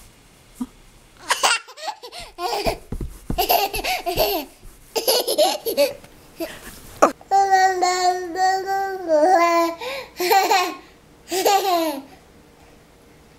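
A one-year-old baby laughing in a series of short bursts, then making long held vocal sounds and babbling.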